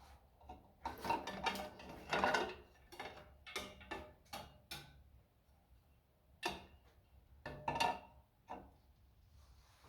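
Irregular knocks and clatters of hard parts being handled, as the engine cooling fan is worked into position: a busy run of knocks in the first few seconds, then scattered single knocks.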